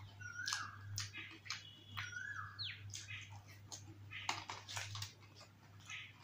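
Close-up eating sounds: a plastic spoon clicking and wet, crunchy bites of yogurt-topped puri chaat, in short clicks and crackles. Three short whistled bird calls rise and fall in the first three seconds, over a steady low hum.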